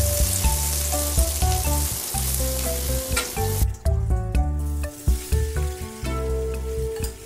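Butter sizzling and foaming in a hot cast-iron skillet, over background music. A little past halfway the sizzle drops out briefly, then comes back quieter as diced potatoes go into the pan.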